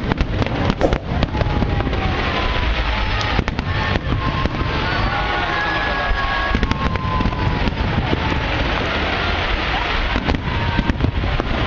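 Fireworks display: a dense, continuous run of sharp bangs and crackling from bursting aerial shells.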